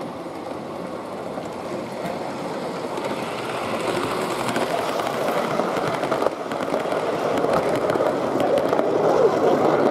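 O gauge model train, a steam locomotive hauling Pullman coaches, running along the track: a rumble and clatter of wheels on rail that grows steadily louder toward the end.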